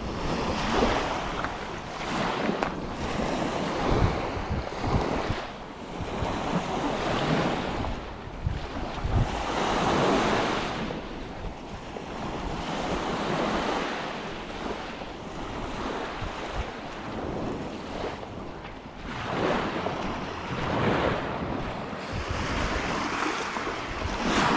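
Lake waves washing onto the shore, surging and easing every few seconds, with wind buffeting the microphone in a low rumble.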